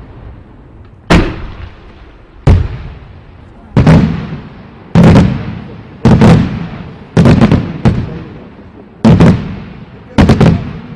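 Display fireworks going off in a steady sequence: about nine sharp, loud bangs roughly a second apart, some in quick pairs, each trailing off in a rumbling echo.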